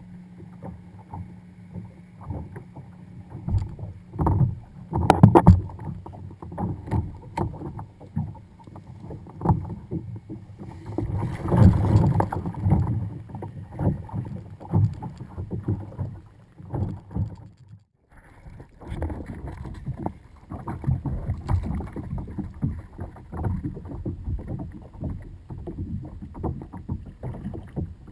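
A kayak on choppy water: water slapping and sloshing against the hull, with many irregular knocks from the boat and its fittings. The sound drops out briefly about two-thirds of the way through.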